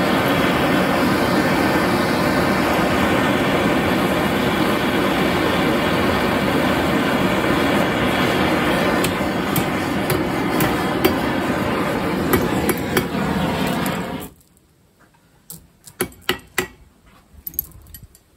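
Hand-held propane torch flame burning steadily against an anvil foot, heating a nail red hot. It cuts off suddenly about fourteen seconds in, followed by a few sharp clicks and knocks.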